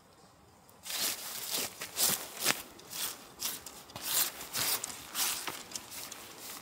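Synthetic tent fabric of a Naturehike Massif tent rustling and crinkling as it is handled and a tent pole is fed through it, in irregular rushes and scrapes that begin about a second in.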